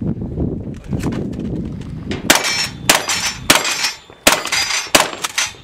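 Mossberg 590 pump-action shotgun firing a rapid string of about six shots, roughly two every second from a little over two seconds in. Each shot is followed by metallic ringing from steel targets. Before the shots there is a low rumble of movement.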